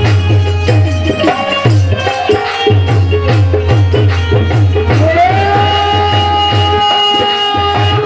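Live devotional folk music: a hand drum beats a steady rhythm under moving melodic lines. About five seconds in, a long note slides up and is held.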